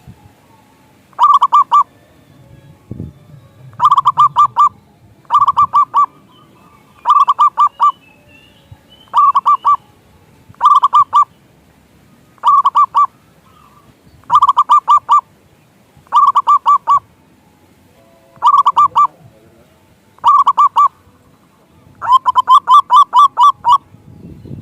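Zebra dove (perkutut) calling: about a dozen short bursts of four or five quick, rolling coo notes, one every second or two, with a longer run of notes near the end.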